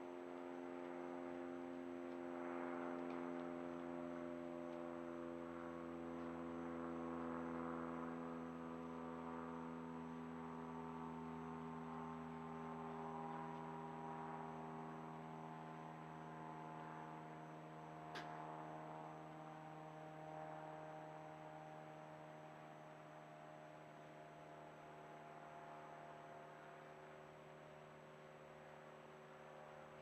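A low droning hum of several stacked tones that slowly fall in pitch and fade toward the end, with a single sharp click about 18 seconds in.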